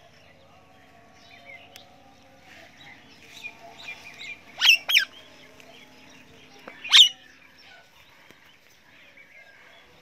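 Parrots calling: softer chirps and chatter, then three loud, short, shrill screeches, two in quick succession around the middle and a third about two seconds later.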